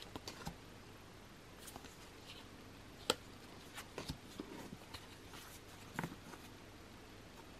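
Stiff printed card bookmarks handled and slid against one another: soft scattered clicks, taps and paper rustles, with a sharper tap about three seconds in and another about six seconds in.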